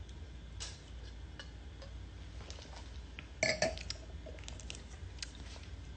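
Quiet room tone: a steady low hum with scattered faint clicks, and one short, louder throaty sound about three and a half seconds in.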